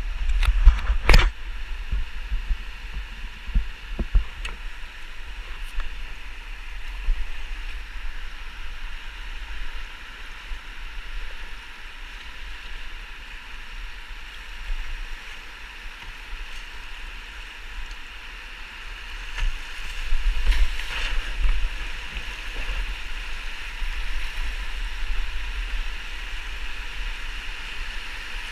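Whitewater rapids rushing around an open canoe, with a low rumble under the noise of the water and a sharp knock about a second in. The rush swells louder about two-thirds of the way through.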